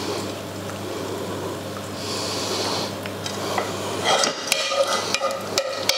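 A spoon scraping and clinking in a frying pan of tomato sauce as the sauce is spooned out, with a run of quick clinks from about four seconds in. Under it is a steady low hum.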